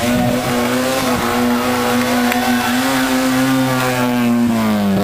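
Classic Lada rally car's four-cylinder engine revving high under load, its pitch held nearly steady, then falling about four and a half seconds in as the revs drop.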